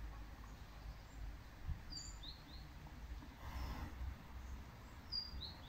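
Small bird chirping: short high notes in quick groups of three, about two seconds in and again near the end, over a low steady outdoor rumble.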